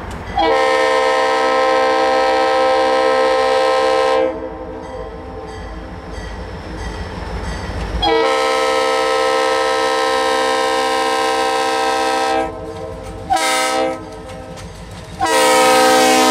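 Freight train's lead diesel locomotive sounding its multi-tone air horn in the grade-crossing pattern of long, long, short, long: two blasts of about four seconds each, a brief one, then a final long blast starting near the end. Diesel engine rumble fills the gaps between blasts.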